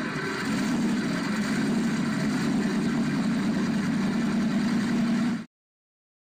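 A vehicle engine idling steadily, then cutting off suddenly about five seconds in.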